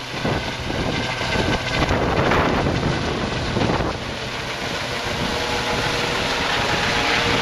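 Eurocopter EC135 twin-turboshaft helicopter in flight overhead: a steady rotor and engine rush with a thin turbine whine. Wind buffets the microphone during the first few seconds.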